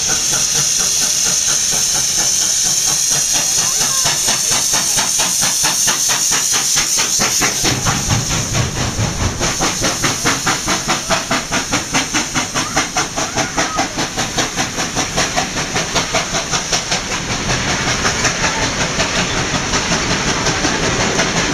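Steam locomotive 3801, a NSW C38 class Pacific, passing close beneath with a loud hiss of steam and a fast, even beat of its exhaust and running gear. A heavier rumble comes in about eight seconds in as the engine and then its carriages run underneath.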